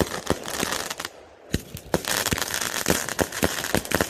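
Aerial fireworks bursting: a dense crackle of many sharp pops and bangs, with a short lull about a second in.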